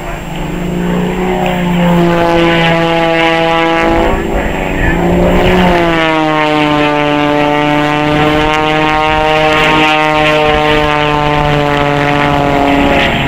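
Propeller engines of a Pitts Super Stinker and a Beech Debonair droning as the pair fly past in close formation. The pitch swoops up and drops away about five seconds in, then sinks slowly as they pass.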